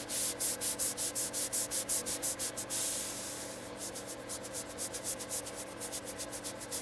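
Stylus tip scratching on an iPad's glass screen in rapid back-and-forth shading strokes, about five a second. The strokes turn softer and quicker a little past halfway.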